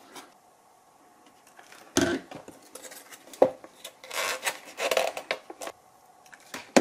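Handling noise from a foam model-aircraft fuselage and foam parts: a few sharp knocks and a stretch of scraping and rubbing as foam pieces are pressed and fitted into the foam body.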